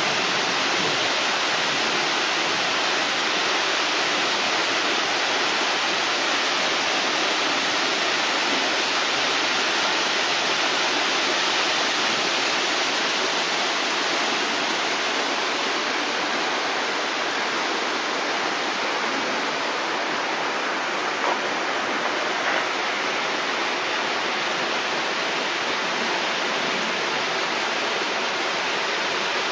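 Steady rushing of water falling at a concrete river dam, an even, unbroken noise.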